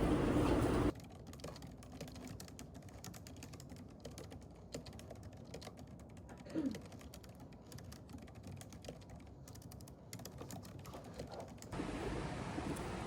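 Typing on a computer keyboard: many quick, irregular key clicks, with one short squeak about halfway through. A louder rushing background noise cuts off about a second in and comes back near the end.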